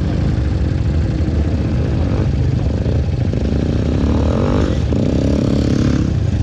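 Dirt bike engines idling close by, with an engine revving up and down between about three and six seconds in.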